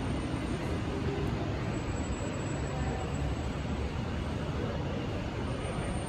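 Steady low rumble and hiss of background noise, with no single distinct event standing out.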